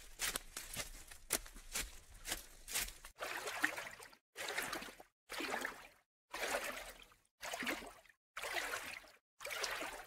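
Sea water lapping and trickling over rocks and a stony shoreline, coming in short bursts about once a second. In the first three seconds there is instead a run of light, irregular ticks.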